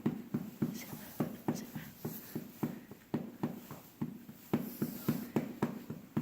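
A pet animal's nose puffing out air over and over, making short, irregular knocks about two or three times a second. This is the mysterious knocking noise in the house.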